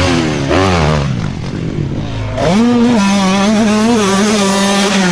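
Motorcycle engine revving. The pitch rises and falls over the first second or so, then climbs about two and a half seconds in and holds steady.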